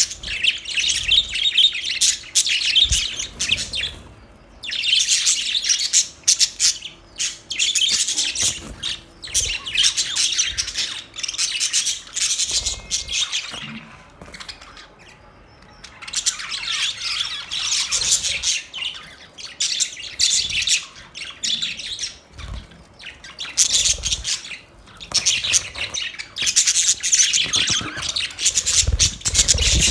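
Budgerigars chirping and chattering, rapid high twittering in bouts with brief lulls between them.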